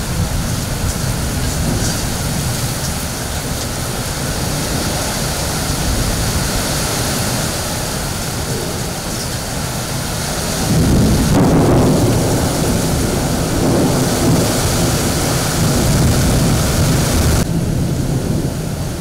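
Heavy rain pouring steadily in a nor'wester thunderstorm. A long, low rumble of thunder swells up a little past the middle and fades again near the end.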